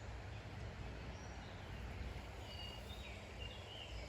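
Small birds chirping a handful of short, high calls, mostly in the second half, over a steady low rumble of outdoor background noise.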